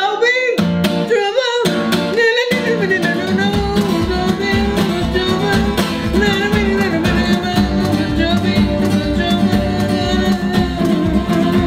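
Strummed acoustic guitar with a man singing over it. About three and a half seconds in, a steady low beat comes in underneath.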